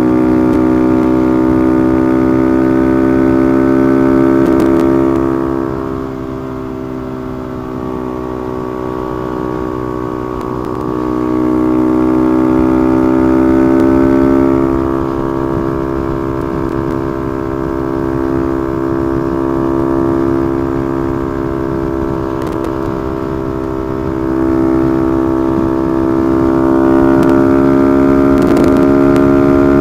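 Honda Monkey's small single-cylinder engine running hard near top speed in its top (fourth) gear, a steady droning note whose pitch and loudness sag and recover a little as speed changes. Wind rushes over the microphone underneath.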